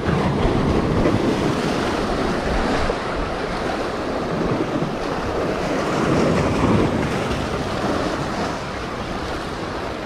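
Surf breaking and washing over the boulders of a rock jetty, a steady rushing with no single loud event, with wind buffeting the microphone.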